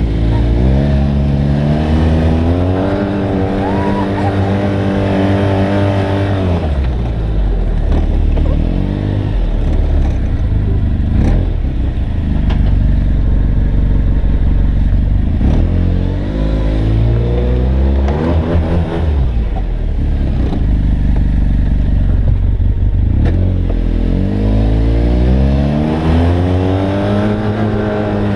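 Arctic Cat Wildcat Trail side-by-side's engine heard from inside the open cab, its pitch climbing as the machine accelerates and dropping as it eases off, several times over.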